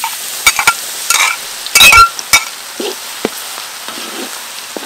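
Hot oil in an aluminium wok sizzling as chopped food is poured in, then frying with a steady hiss. In the first two and a half seconds there are several sharp knocks and scrapes of a spoon against the bowl and the wok, the loudest just before two seconds in.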